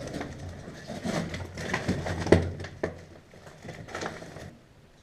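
Irregular scuffing footsteps and knocks of gear, close to the camera, with the sharpest knock a little over two seconds in; the activity dies down near the end.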